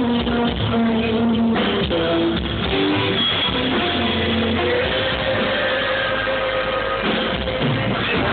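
Rock band playing live, electric guitar to the fore with sustained notes over bass and drums, heard from within the festival crowd.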